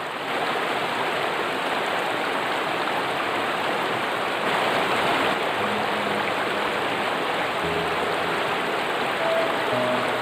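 Steady rushing of flowing water, an even hiss that does not let up.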